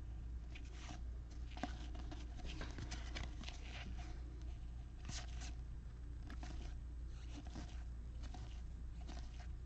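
Trading cards being handled, slid and rubbed against one another in a series of short, irregular scratchy swipes, over a steady low hum.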